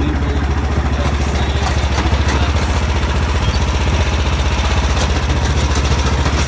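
Yard Machines lawn tractor's 420cc single-cylinder engine running loud and steady on its stock exhaust, with a fast, even firing beat. It is under load, spinning the rear tires in a burnout with the mower held against a wall.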